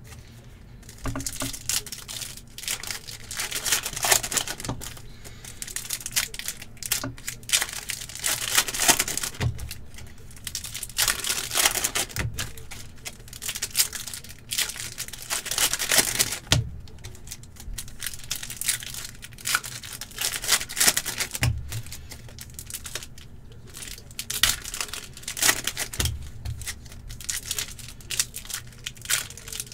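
Foil hockey card packs being torn open one after another, the wrappers crinkling and ripping in repeated bursts every few seconds.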